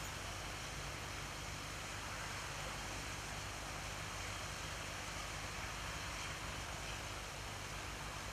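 Steady hiss of city traffic on wet roads, with a low hum underneath and no distinct events.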